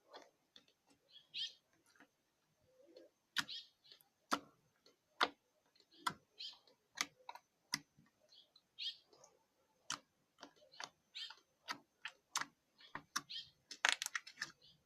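Slime being squeezed and worked by hand, giving irregular sharp clicks and pops with short squishes in between, thickening near the end.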